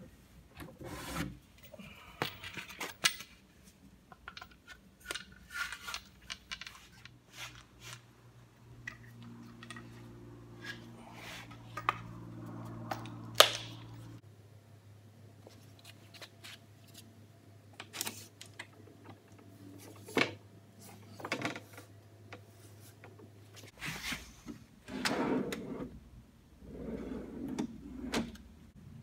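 Wooden jigs and shop parts being handled: a string of sharp knocks and clicks with some rubbing, over a faint steady low hum through the middle. Near the end, two longer sliding sounds come from a drawer being worked on its metal runners.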